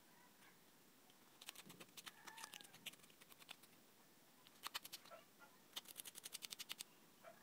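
Light, sharp clicks and scratches in short bursts as fingers work the fan motor's thin lead wires, ending in an even run of about ten clicks a second.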